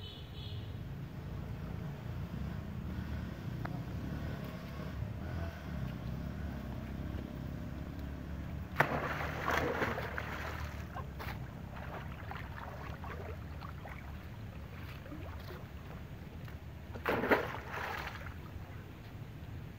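Monkeys splashing as they swim in shallow water: a burst of splashing about nine seconds in and another shorter one near the end, over a steady low rumble.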